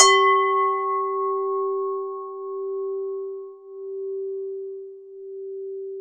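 Buddhist standing bell (struck singing bowl) hit once with a mallet, then left to ring. Its bright higher overtones die away within a second or two while the main tone rings on, slowly fading with a gentle wavering pulse.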